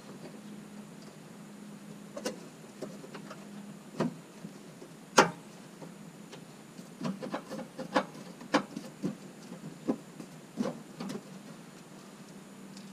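Sharp clicks and taps of a hard plastic air box panel and its fasteners being handled and fitted by hand in a wheel well. One loud click comes about five seconds in, then a quick run of clicks in the second half.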